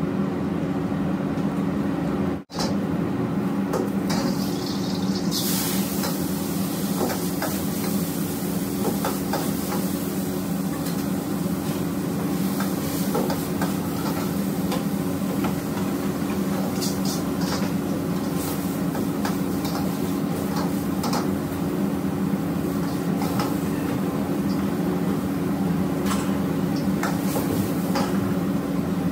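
Gas wok burners running with a steady low rumble while vegetables and noodles sizzle in two woks. Steel ladles scrape and clank against the woks as they are stir-fried. The sizzling hiss grows stronger about five seconds in.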